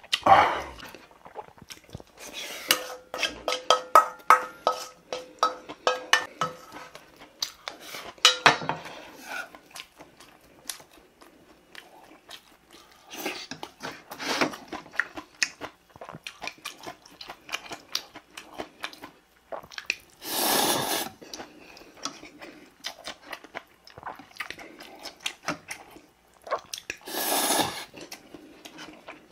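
Eating at a table: a spoon scrapes and clinks against a stainless steel bowl, which rings, then chewing, with two long slurps of ramen noodles about twenty seconds in and near the end.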